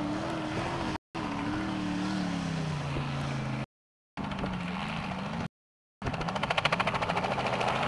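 Off-road buggy engine revving under load, its pitch swinging up and down as it is driven hard through loose sand. The sound cuts out completely three times for a moment. From about three-quarters of the way in, a fast pulsing throb sits over the engine.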